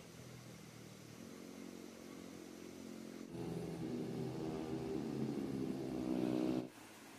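An engine running steadily with a low, even hum, growing louder about three seconds in and cutting off abruptly near the end.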